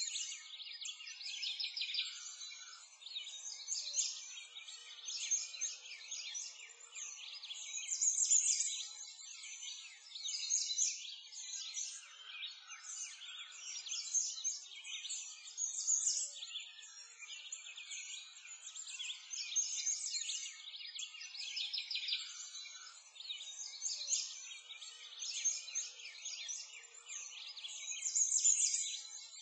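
Dense chorus of small songbirds chirping and twittering without pause, swelling louder every few seconds.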